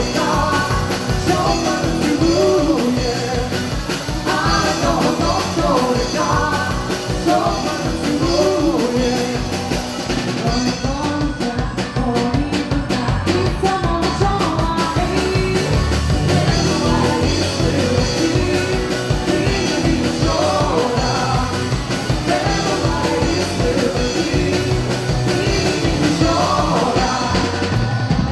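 Rock band playing a song with a steady beat, with a singer's voice over guitar, bass and drums.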